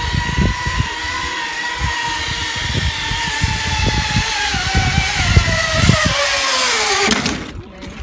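Zipline trolley pulley whining as it runs along the cable, a steady whine that drops in pitch as the rider slows on the approach to the end, then cuts off about seven seconds in as the trolley reaches the tyre buffer.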